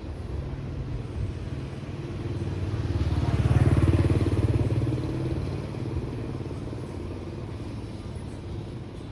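A motorbike passing close by, its engine growing louder to a peak about four seconds in and then fading away, over a steady background of street traffic.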